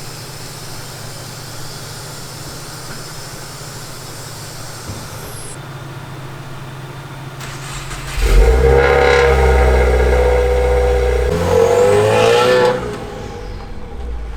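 A car engine running with a steady low hum; about eight seconds in it gets much louder for about four and a half seconds, its pitch rising and falling as it is revved, then it drops back to the steady hum.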